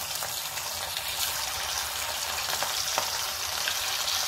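Masala-coated prawns deep-frying in hot oil in a steel kadai: a steady sizzle with small crackles and pops, getting slightly louder over the few seconds.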